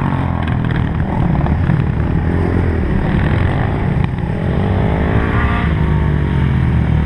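Honda 400EX ATV's single-cylinder four-stroke engine running hard under throttle, its pitch rising and falling a few times as it revs.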